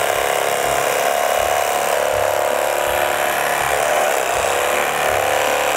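Cuisinart CEK-30J electric knife running steadily, its reciprocating serrated blades sawing a slice through a hard, crusty baguette.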